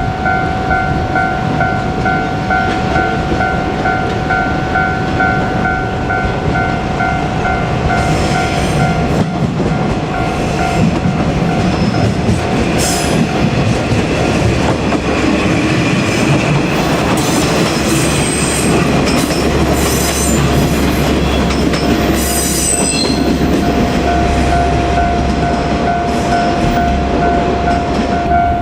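A Japanese level-crossing warning bell ringing in a steady repeating tone. About a third of the way in, the Ibusuki no Tamatebako diesel train passes through the crossing for some fifteen seconds: engine and wheel rumble with sharp high wheel squeals. The crossing bell rings clear again near the end.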